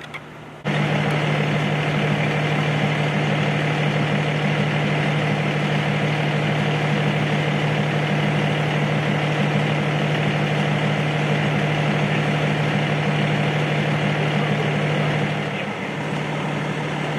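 A fire ladder truck's diesel engine runs steadily at raised revs, powering the aerial ladder's hydraulics as the ladder is moved. The steady drone comes in suddenly about a second in and eases slightly near the end.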